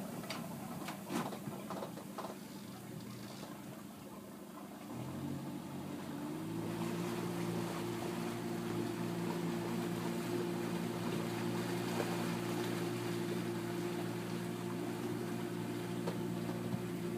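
Motorboat engine running. It speeds up about six seconds in, its pitch rising, then runs steady. A few sharp knocks come near the start.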